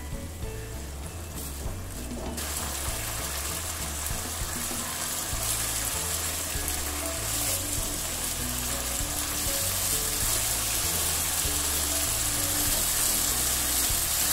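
Minced meat (keema) frying in oil in a non-stick kadhai on medium-high heat, sizzling as it is stirred with a spatula: the bhunai stage, where the cooked mince is fried until the oil separates. The sizzle sets in suddenly about two seconds in and grows steadily louder, with background music underneath.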